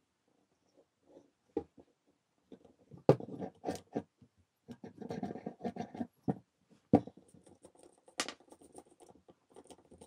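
An old Dacia alternator being handled and turned over by hand: irregular knocks, clicks and rubbing of its metal housing, with a few sharp clicks.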